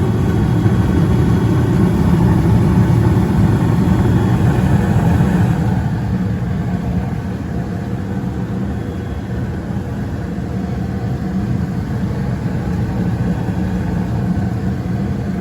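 Bryant gas furnace running in heat mode with its front panel off: a steady whir and hum from the Broad Ocean inducer motor and the burners, a little quieter from about six seconds in.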